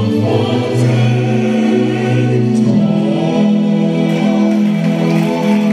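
Mixed choir singing a carol in parts, men's and women's voices together; the harmony moves for the first few seconds, then settles on a long held chord.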